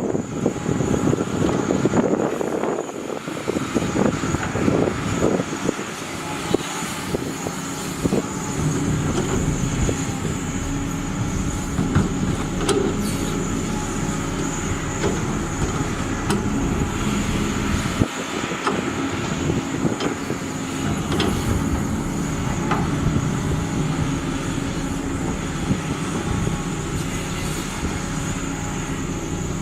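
Heavy construction machinery working, most likely an excavator's diesel engine and hydraulics, running steadily under load. Short knocks and clanks come every so often, and the sound is rougher in the first few seconds.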